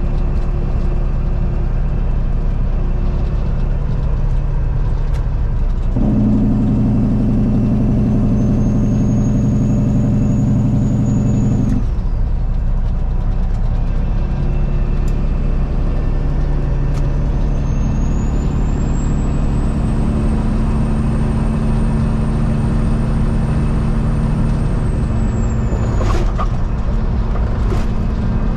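Peterbilt 379 semi truck's diesel engine running steadily while driving down the highway, with a louder stretch of about six seconds starting around six seconds in. A faint high whistle rises and falls over the engine twice, and there is a brief rattle near the end.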